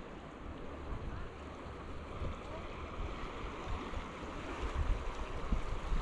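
Ocean waves washing onto a sandy beach, a steady rush of surf, with low wind rumble on the microphone that picks up near the end.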